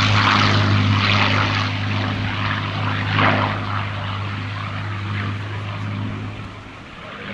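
Hawker Sea Hurricane's Rolls-Royce Merlin V12 engine and propeller running steadily in flight, fading away toward the end as the fighter moves off.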